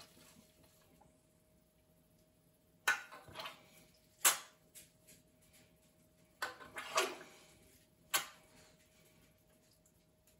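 Turkey legs being basted in a roasting pan inside an oven: four or so short clinks and scrapes of a utensil against the pan, spread through the middle, over a faint steady hum.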